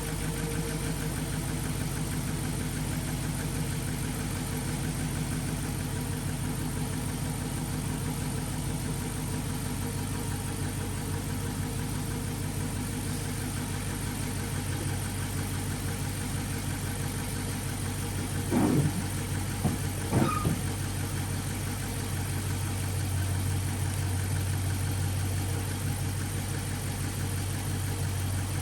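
Dodge Charger's Hemi V8 idling steadily. About two-thirds of the way through come two short, louder sounds a second and a half apart.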